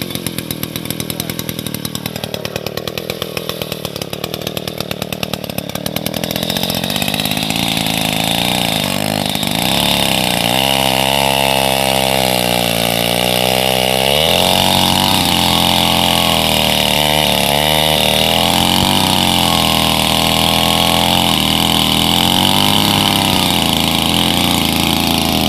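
Old engines running cold, with a fast, even firing rhythm that grows louder about six seconds in. The engine speed then rises and falls several times.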